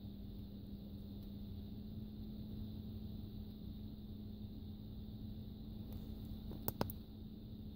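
Steady low hum and rumble inside a car, with two quick clicks near the end as the button on the handheld OBD2 scanner is pressed.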